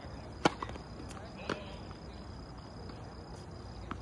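Tennis serve: the racket strikes the ball with a sharp crack about half a second in, and a second, quieter impact follows about a second later. A steady chirring of crickets runs underneath.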